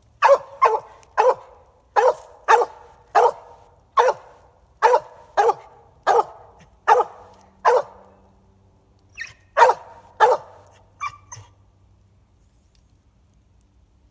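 Dog barking treed, reared against a tree trunk and barking up into it: a regular run of loud single barks, a bit more than one a second, then a short pause, a few more barks, and it stops about eleven and a half seconds in.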